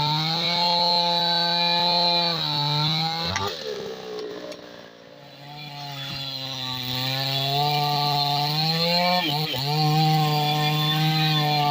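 New West 628 two-stroke chainsaw running at high revs, most likely cutting teak. Its note sags and quietens about three and a half seconds in, climbs back a couple of seconds later, and dips briefly once more near the end.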